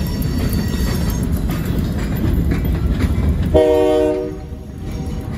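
Freight cars rolling past with a steady low rumble and the clicking of wheels over rail joints. About three and a half seconds in, a train horn sounds briefly and the rumble falls away.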